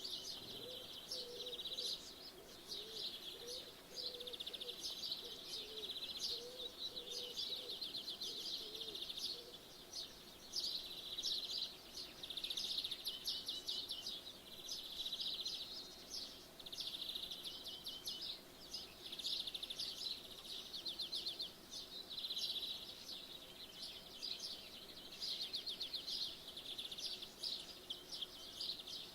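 Several small birds singing at once, a dense run of fast high chirps and trills that overlap without a break. A lower wavering sound runs under them for roughly the first nine seconds.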